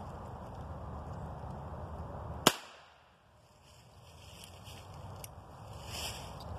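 A single gunshot, one sharp crack about two and a half seconds in, dispatching a raccoon held in a trap.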